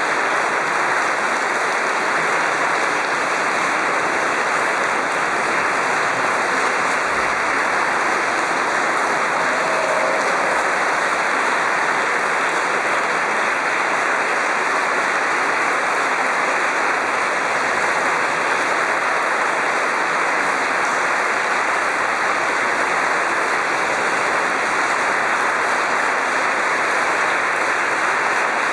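Audience applauding steadily, a dense even clapping that neither builds nor fades.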